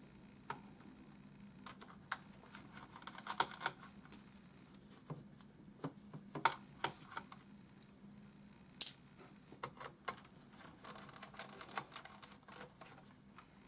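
Scattered light clicks and taps of a screwdriver working the last screws out of a laptop's plastic underside, with a few sharper clicks standing out.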